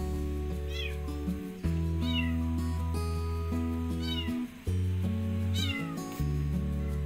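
A kitten meowing four times, short high meows a second or two apart, over background music with held low notes.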